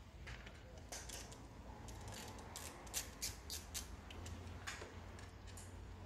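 A quick run of small sharp clicks and scrapes from hand tools and wire ends at a plastic light-fitting base as the earth conductors are worked into its terminals, busiest in the middle. A low steady hum runs underneath.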